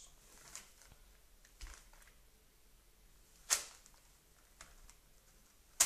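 A few faint, sharp taps and knocks from a toddler handling a small plastic ball and magazines on a laminate floor, the loudest about three and a half seconds in and another near the end.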